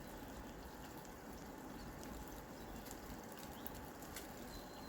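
Light rain falling steadily: a soft even hiss with scattered faint ticks of drops.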